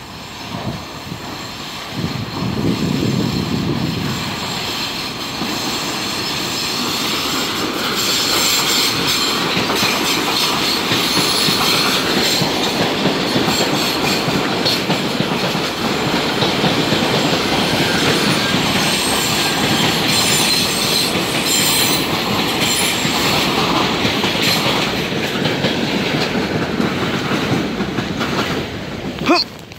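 New York City subway trains of R62 cars passing close by in an open cut, with a loud steady rumble and wheel clatter that builds up about two seconds in. Faint wheel squeal rises and falls over the top of it.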